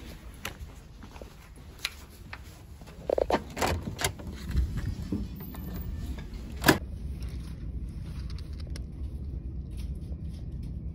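Handling noise from a phone camera carried and moved about: soft knocks and clicks over a low steady hum, a cluster of louder knocks about halfway in and a single sharp click, the loudest sound, a little later.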